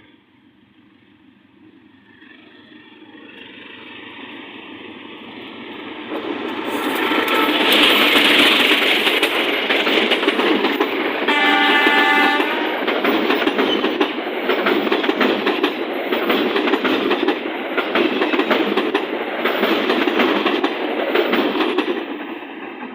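Passenger train approaching and passing close by, growing louder over the first several seconds, then a loud run of wheels clattering over the rail joints. The locomotive's horn sounds once, about 1.5 s long, roughly halfway through.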